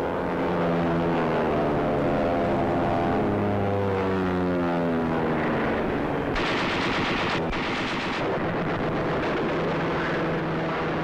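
Propeller aircraft engines droning in formation, their pitch sliding slowly downward as they pass. About six seconds in, two bursts of gunfire break in over the continuing rumble.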